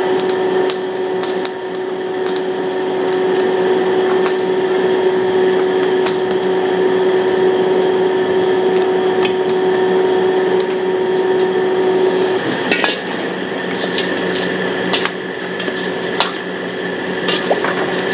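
Metal wok ladle knocking and scraping against a wok as noodles are stir-fried over a charcoal stove, with irregular sharp clanks. A steady hum runs underneath and drops away about twelve seconds in.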